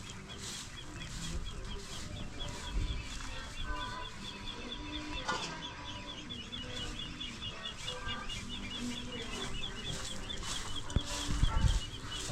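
Chickens clucking, under a fast run of high bird chirps, over a regular series of broom swishes about one to two a second. A few dull low knocks, the loudest sounds, come near the end.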